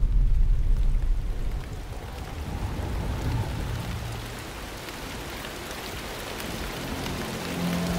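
A deep rumble of thunder that dies away within the first two seconds, giving way to steady rain whose hiss grows louder toward the end.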